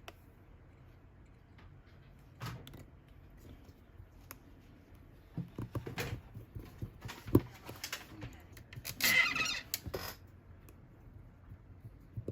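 Scattered small clicks, taps and light scrapes of a precision screwdriver and small metal and plastic phone parts being handled, denser in the middle, with a brief rustle about nine seconds in.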